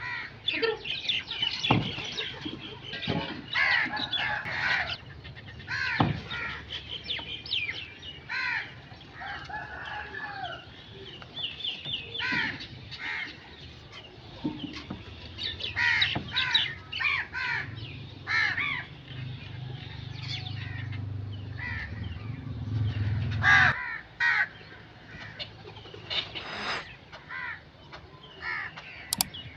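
Dense chorus of overlapping bird calls, with crows cawing among them. A low drone joins partway through and cuts off sharply about two-thirds of the way in.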